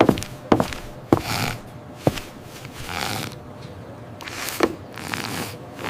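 Cartoon kitten snoring in its sleep: two breathy snores, the first about a second and a half in and the next about a second and a half later, among several sharp clicks.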